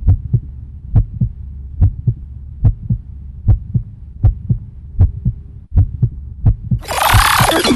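A heartbeat sound effect in a hip-hop dance track: paired low thumps about every 0.8 seconds over a faint steady hum. Near the end the full hip-hop beat crashes back in with a loud falling sweep.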